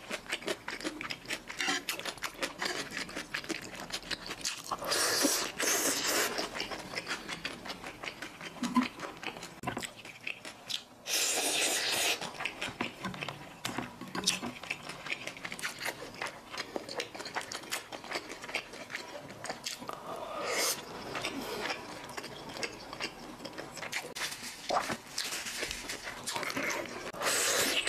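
Close-miked eating of sauce-coated Xinjiang stir-fried rice noodles: wet chewing and mouth clicks throughout, with a few longer, louder slurps of noodles.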